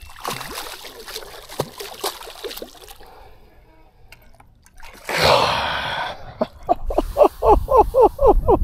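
Water splashing and slapping as a bass is grabbed by hand at the side of a boat and pulled from the lake. About five seconds in comes a loud exclamation, then a quick run of short, evenly spaced voice sounds.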